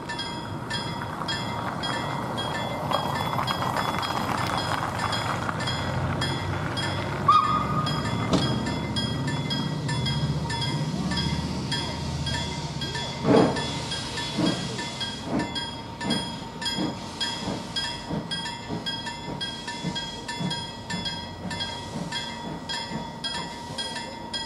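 Level-crossing bell ringing in a fast, even beat throughout. About halfway through, a distant steam locomotive starts away, its exhaust chuffs beginning with a loud first beat and then coming gradually quicker.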